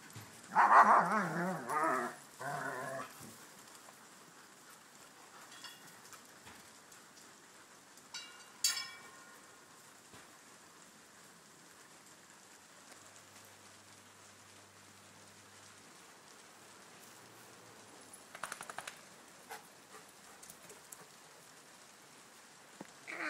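A dog barking in a quick run of three or four loud calls in the first three seconds, then mostly quiet, with one short sharp high sound about nine seconds in and a few faint noises near the end.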